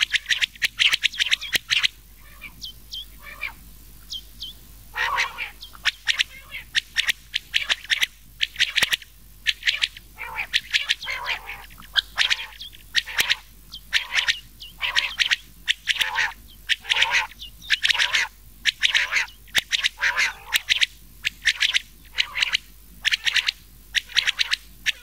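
Rain quail and common quail (batair) calling over and over in short, sharp, high notes, with a thinner stretch of calls a couple of seconds in. It is a looped call recording used as a lure for quail hunting.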